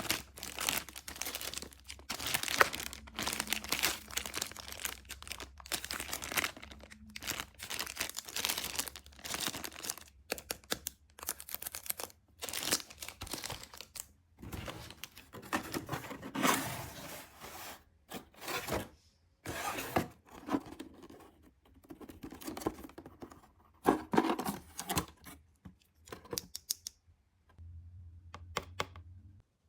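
Toy packaging being handled and torn open by hand: irregular bursts of tearing and crinkling, thinning out over the last few seconds.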